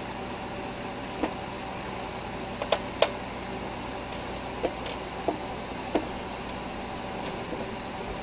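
Steady hum and hiss of room noise with about six scattered light clicks and taps, the sharpest about three seconds in, and a couple of faint high blips near the end.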